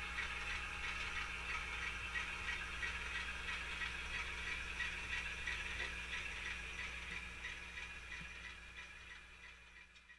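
HO scale model train rolling past on the track: a steady rattle with a low hum under it and a regular ticking about three times a second, fading out near the end.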